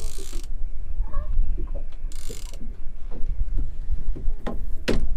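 Fishing tackle being handled, giving irregular mechanical clicks and ratcheting with a sharper click near the end, over a steady low rumble.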